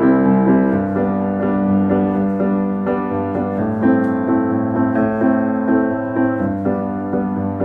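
Music: a slow keyboard passage of sustained chords with no singing, the notes changing every second or so.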